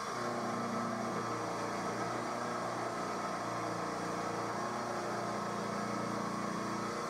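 Emco F1 CNC milling machine cutting metal with an end mill: the spindle and cutter run steadily through the stock.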